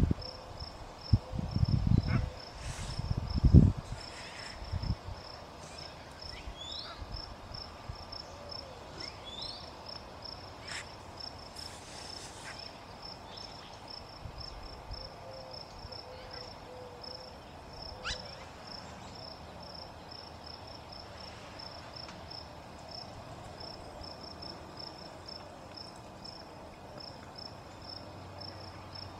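Cricket chirping steadily, an even run of high-pitched pulses at one pitch. A few low thuds come in the first four seconds, the loudest about three and a half seconds in, and there are a few faint short bird chirps.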